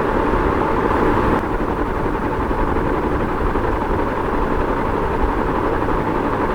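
Ceiling fan running steadily: an even noise of moving air over a low motor hum.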